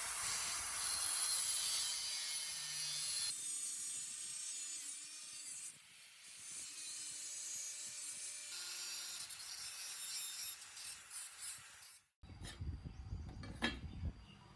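Steady rasping, scraping noise of a tool working a material, in several spliced stretches. It cuts off abruptly about twelve seconds in, and a low rumble with a few sharp knocks follows.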